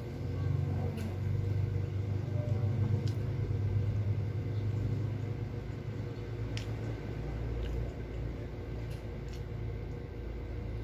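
A low rumble that builds about half a second in and slowly eases off, with a few faint clicks scattered through it.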